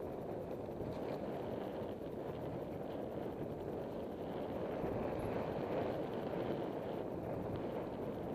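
Mountain bike riding down a dirt singletrack: a steady rush of wind and tyre noise on the camera's microphone.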